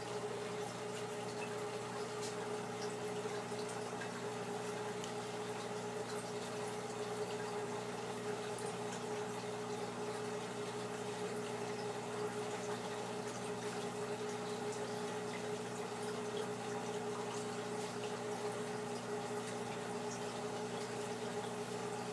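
Aquarium filter running: a steady hum under a constant trickle and bubbling of water, with faint ticks.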